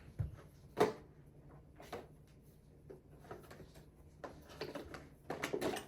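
Packaging being handled during an unboxing: a few separate sharp clicks and knocks, the loudest just under a second in, then a quicker run of tapping and rustling near the end.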